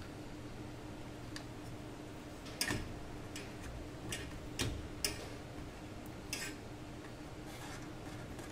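Plastic power-supply connectors and wires clicking and knocking against the metal PC case as hands route and plug in the cables. About nine sharp, irregular clicks, the loudest a little under 3 seconds in and about 5 seconds in, over a faint steady hum.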